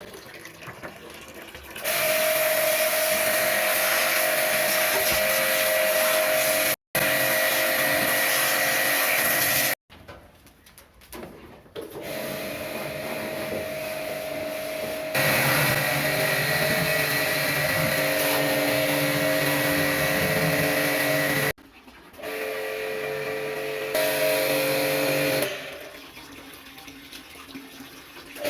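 Electric pressure-washer pump running with its water jet spraying, as an air conditioner is washed clean of dust. A steady motor whine over the hiss of spray, starting and stopping abruptly several times.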